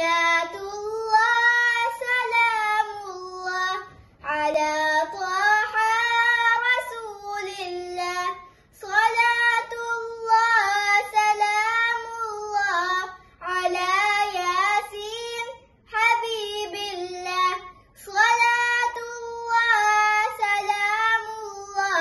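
A young girl singing a Dhivehi madhaha, an Islamic devotional song, unaccompanied, in melodic phrases of a few seconds with short pauses for breath between them.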